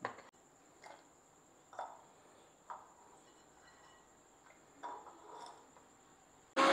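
A knife cutting peeled onion and garlic on a board in a few soft strokes about a second apart. At the very end an electric mixer grinder switches on loudly to grind them to a paste.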